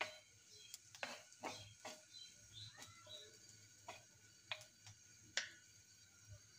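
Wooden spatula stirring onions, garlic and green chillies frying in mustard oil in a pan: faint, irregular clicks and knocks as the spatula hits the pan and moves the pieces.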